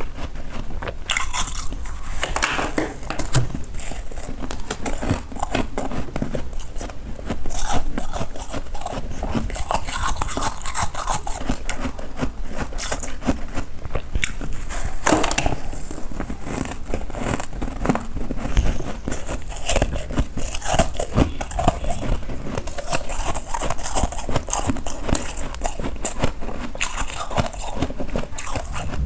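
Crunchy freezer frost being scraped: a steady run of crackling, crunching scrapes with many sharp strokes, a few of them louder, about 7 and 15 seconds in.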